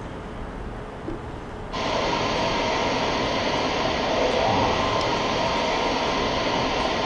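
Steady rushing, rumbling noise from a sound-collage soundtrack, cutting in suddenly about two seconds in and holding even.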